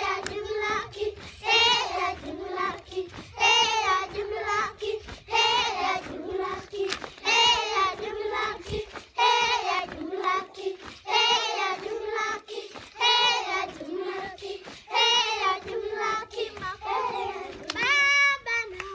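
A group of Maasai girls singing together in chorus, with a loud high phrase rising out of the song about every two seconds.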